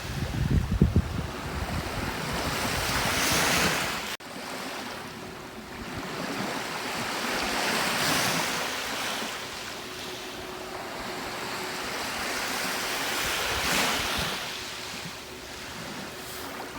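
Gentle sea waves breaking and washing up the shore, swelling and fading three times. Wind rumbles on the microphone in the first second.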